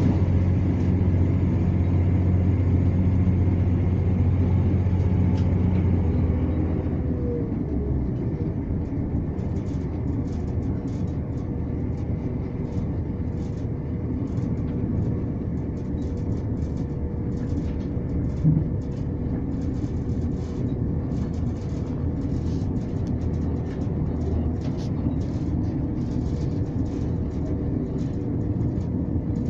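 ScotRail Class 170 diesel multiple unit heard from inside the passenger saloon: a loud, steady drone from the underfloor diesel engine that drops away about seven seconds in. After that comes a quieter steady rumble of wheels on rail with faint rattling ticks and a single knock partway through.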